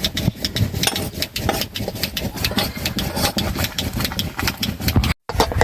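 Heavy rain, with dense drops striking close by over a low rumble. It cuts out for a moment near the end.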